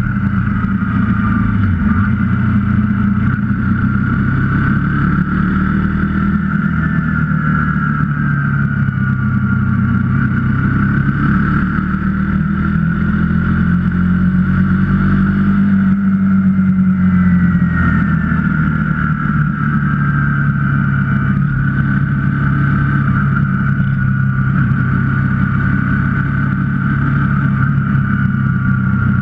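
KTM 125 Duke's single-cylinder four-stroke engine running steadily while riding, its pitch falling and rising a little a few times.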